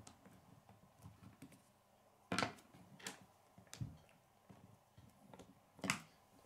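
K'nex plastic rods and connectors being handled and snapped together, giving a handful of sharp clicks, the loudest about two and a half seconds in and again near the end, among lighter ticks of the pieces.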